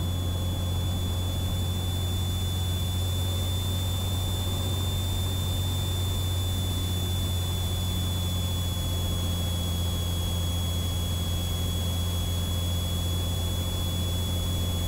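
Cessna 182T's engine and propeller droning steadily inside the cabin on final approach, a low, even hum with a thin steady high-pitched whine above it.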